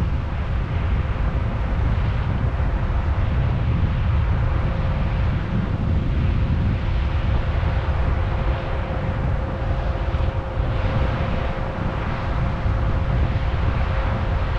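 John Deere 9650 STS combine running steadily while harvesting corn: a constant low rumble with a thin, steady whine above it.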